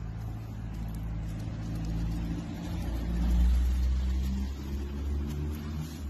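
Low engine rumble of a road vehicle, swelling to its loudest about three and a half seconds in and then easing off.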